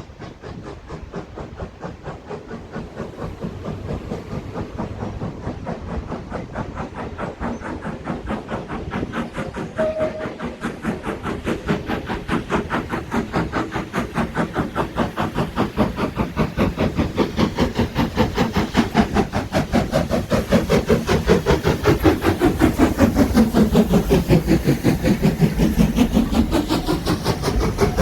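Steam locomotive working a train away with its chuffing exhaust beats, which come quicker and louder as it gathers speed and draws near.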